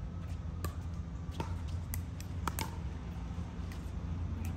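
Pickleball paddles striking a hard plastic ball during a rally: a string of sharp pops at uneven intervals, some ringing briefly, over a steady low hum.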